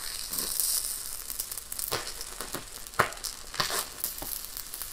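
Stick (SMAW) welding arc burning on an overhead cap pass at about 117 amps: a steady crackling sizzle with several sharper pops, the loudest about three seconds in.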